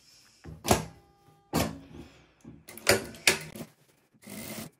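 A few knocks and clunks as fabric is set under the presser foot of an industrial straight-stitch sewing machine, then near the end the machine starts stitching in short runs with brief pauses.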